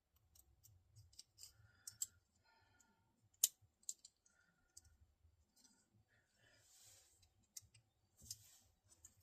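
Faint, scattered small clicks and ticks of cardboard being cut and handled, with one sharper click about three and a half seconds in.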